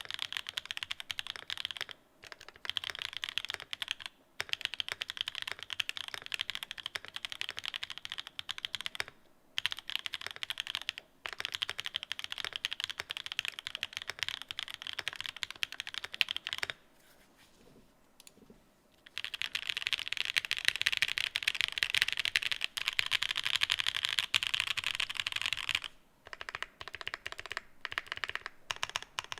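Continuous typing on a mechanical keyboard fitted with Cherry Blossom linear switches and Cherry-profile keycaps, with fast runs of keystrokes and short pauses. The typing stops for about two seconds just past the middle, then resumes louder.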